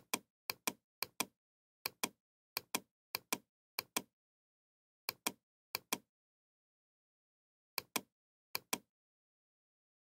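Computer mouse button clicking in quick pairs, about eleven pairs with short irregular pauses between, as the scrollbar's down arrow is clicked to page through a document.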